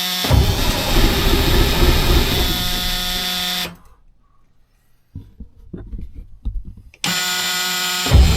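Starter motor whining as the 1980 Peterbilt 359's diesel engine is cranked, and the engine catching with a loud, rough rumble. It stops after about three and a half seconds; after a short quiet spell with a few faint knocks the starter whines again and the engine catches once more near the end.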